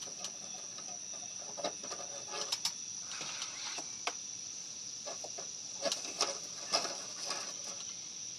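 Scattered light clicks and scrapes of hands working at a dryer vent's exterior hood and its flap, which is stuck shut and packed with lint, over a steady high chirring of crickets.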